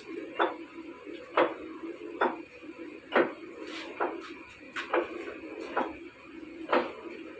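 Large metal lathe boring a stack of steel plates clamped to its faceplate: a steady machine hum with a sharp metallic click about once a second.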